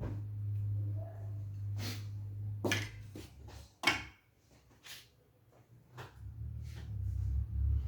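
Scattered clicks and knocks of objects being handled and set down, the sharpest about four seconds in, over a steady low hum.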